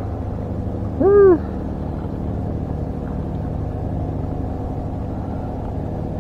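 An engine hums steadily and evenly. About a second in there is one short hooting call whose pitch rises and then falls.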